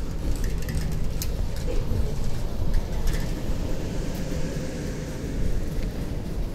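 City street ambience: a steady low rumble of road traffic, with a few faint clicks and knocks over it.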